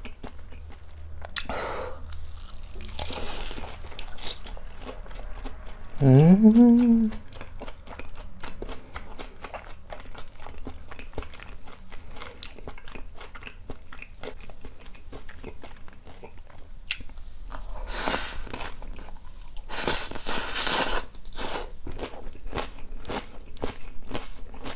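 Crunching and chewing of crisp batter-fried chicken thigh and oyster, with many small crackling bites throughout. About six seconds in, a short hum rising in pitch from the eater is the loudest sound.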